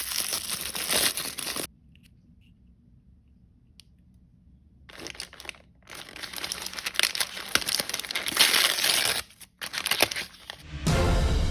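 Plastic blind-bag packaging crinkling and being torn open, in two spells with a pause between. Near the end a swoosh sound effect leads into music.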